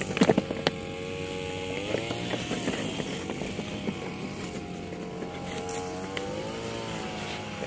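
A few quick boot stamps and shuffles as the ranks dress right, then a steady engine hum whose pitch rises and falls slowly, from a motor running nearby.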